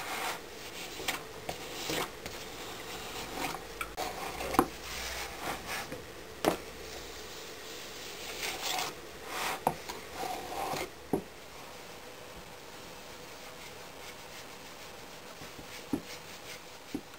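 Flat steel spatula scraping across packed casting sand in a wooden moulding flask, striking it off level, with irregular knocks against the wooden frame. The scraping stops about eleven seconds in, leaving only a few faint taps.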